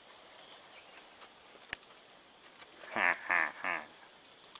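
Red junglefowl rooster held in the hand, giving three short harsh squawks in quick succession about three seconds in: distress calls of the captured bird. A single sharp click comes a little earlier.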